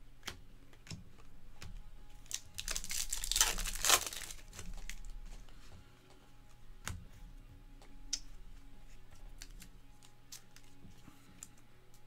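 Stacks of baseball trading cards handled and flipped through by hand: many small clicks and slides of card edges, with a louder rustle about three to four seconds in.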